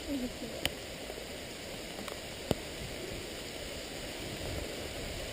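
Steady rain falling, a soft even hiss, with two sharp ticks a couple of seconds apart.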